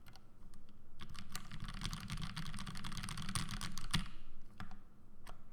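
Typing on a Bisoromi RS custom mechanical keyboard with Gateron Ink V2 linear switches and GMK Alter ABS keycaps: a rapid, dense stream of keystrokes that thins to a few scattered strokes near the end.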